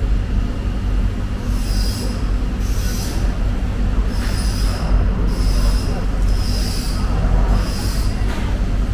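Long knife cutting through a bluefin tuna carcass, a short high scraping squeak with each stroke, roughly once a second, over a steady low machine hum.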